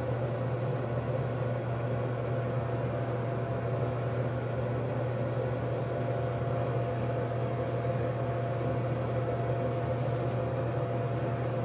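A steady mechanical hum, low and even, with a fainter higher tone above it.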